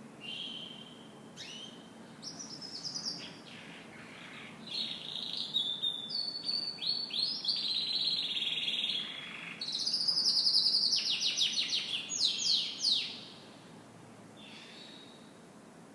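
Domestic canary singing a varied song of rapid trills and repeated chirps, building to its loudest about two-thirds of the way through and falling quiet a few seconds before the end.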